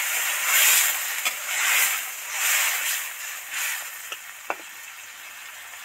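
Freshly added water sizzling in the hot oil of a pan of frying potatoes and vegetables, swelling in several waves as a spatula stirs it, with a few light taps of the spatula on the pan. The sizzle settles to a quieter, steady hiss for the last couple of seconds.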